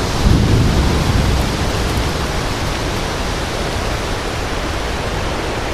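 Strong thunderstorm wind making a steady loud rushing noise, with low buffeting of the microphone heaviest about half a second in and easing slightly after.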